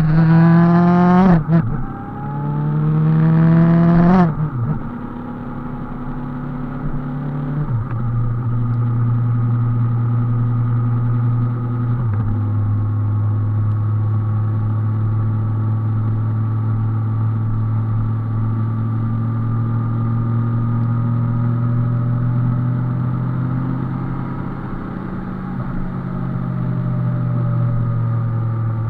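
Motorcycle engine accelerating hard through two gears, its pitch climbing and then dropping sharply at each shift, then cruising at a steady pitch.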